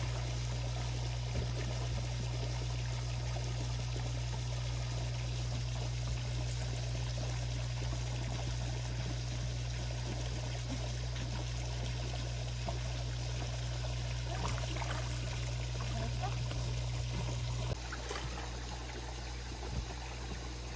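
Steady trickling, running water in a dog swimming pool, over a low steady hum that drops a little near the end.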